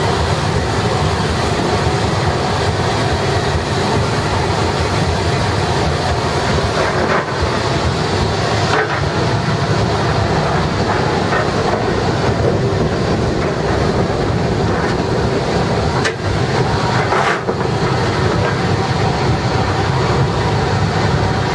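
Steam locomotive B3 No.130 running under way, heard loud from inside its cab: a steady, dense rumble and rush of the moving engine, with a few short knocks while the fireman works the firebox with the shovel.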